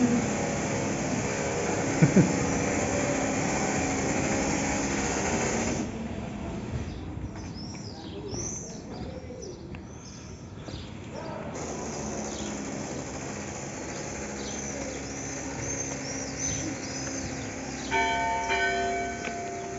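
A steady rushing noise with a couple of knocks gives way after about six seconds to birds chirping, and about eighteen seconds in church bells start ringing the noon hour.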